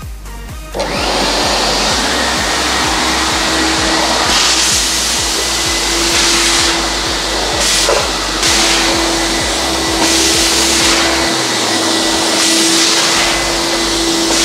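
Wet-and-dry vacuum cleaner switched on about a second in, then running steadily with a hum and a high whine while sucking water up off a wet floor. Its hiss swells and eases every second or two.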